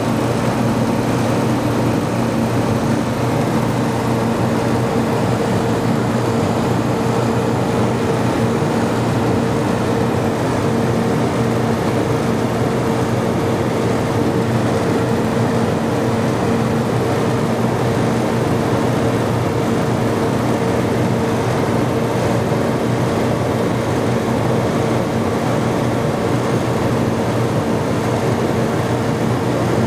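Loud, steady machinery hum: a constant low drone with a steady higher tone over a rushing noise, with no change in pitch or level.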